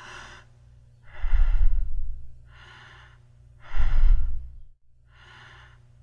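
Human breathing at a normal, regular rate (eupnea): even breaths that alternate between a quieter and a louder breath sound, about one full breath every two and a half seconds, over a faint low hum.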